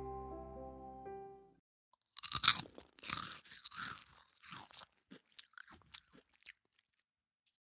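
A short music phrase with clear, bell-like notes ends about a second and a half in. After a brief pause comes a few seconds of irregular crunching, loudest at first and thinning out.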